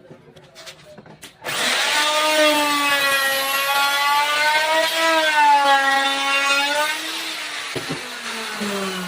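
An electric power tool's motor whining at high speed while it works wood, its pitch dipping and recovering as it cuts. It starts about a second and a half in and winds down near the end.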